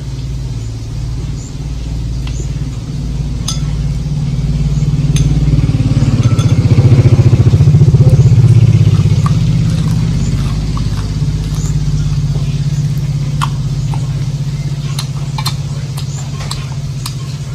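A motor engine drones low, swelling to its loudest about halfway through and then easing off, like a vehicle passing close by. Over it come scattered sharp crunches of crisp fried sparrows being bitten and chewed.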